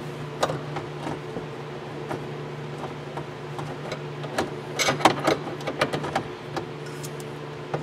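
A screwdriver and small metal hardware clicking and knocking as the screws of the shift boot retainer ring around the gear lever are fitted and tightened. A run of quick clicks comes about four and a half to six seconds in, over a steady low hum.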